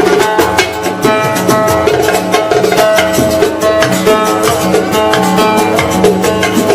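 Instrumental break in a live Arabic song: a sustained melody over a steady, evenly spaced drumbeat, with no singing.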